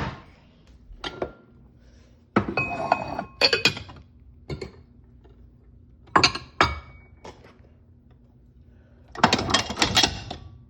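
Clean dishes, glasses and cutlery clinking and knocking as they are put away, in separate knocks and two longer bursts of clatter, some strikes ringing briefly.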